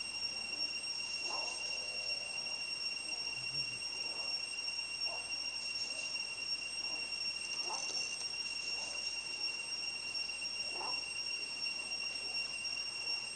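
Forest ambience: a steady high-pitched whine, with a fainter tone an octave above it, and faint short calls scattered through it every second or few seconds. The owl does not clearly call.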